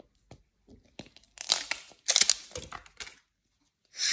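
Thin PET plastic capsule crackling and clicking under the fingers as it is squeezed and worked at to open it: a few light clicks, then bursts of crackle about a second and a half in and again around two seconds.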